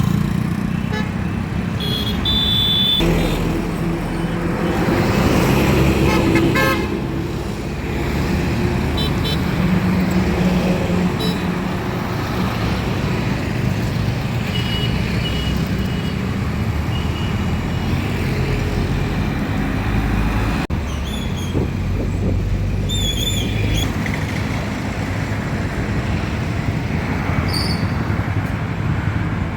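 Road traffic going past: vehicle engines and tyres in a continuous rumble, with short horn toots several times, the first a couple of seconds in.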